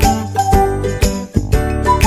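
Background music with a steady beat and a melody of bright, high notes.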